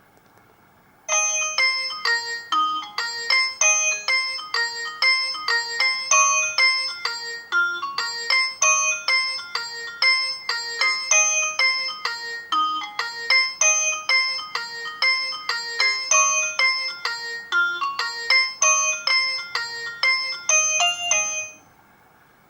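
An Alcatel 2000X ringtone playing through a Samsung GT-B2710 phone's speaker: a quick melody of short, bright notes whose phrase repeats about every five seconds. It starts about a second in and stops shortly before the end.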